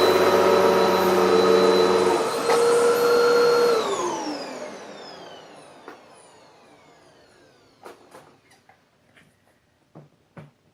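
2011 Hoover WindTunnel Max upright vacuum running with a steady whine; its low hum drops out about two seconds in, and near four seconds the motor is switched off and winds down with a falling whine that fades over about three seconds. A few faint clicks follow.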